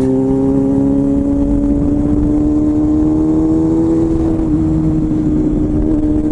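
Sport motorcycle engine running steadily under way, its pitch creeping slowly upward as the bike gathers speed out of a bend, over a low rush of wind noise.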